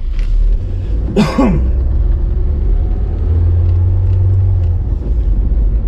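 Steady low rumble of a car on the move, heard from inside the cabin, with a brief vocal sound about a second in.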